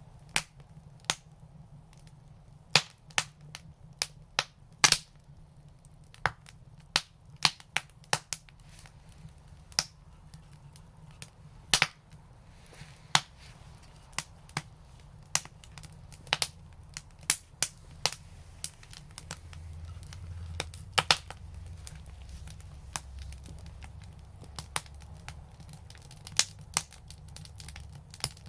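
Wood fire crackling in an outdoor brick fireplace: sharp, irregular pops and snaps, several a second at times, over a low rumble that swells a little past the middle.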